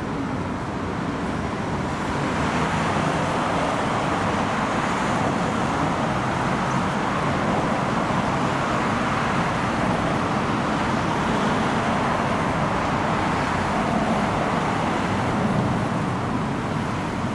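A motor vehicle running: a steady rumble that gets louder about two seconds in and eases off near the end.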